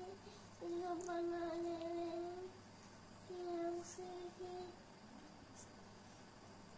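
A child humming a tune: one long steady note held for about two seconds, then three short notes at the same pitch.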